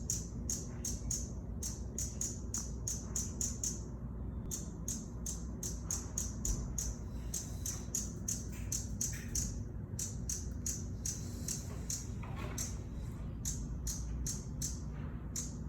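Hummingbird calling: a rapid series of high, short chip notes, about four or five a second, broken by a few brief pauses, over a steady low hum.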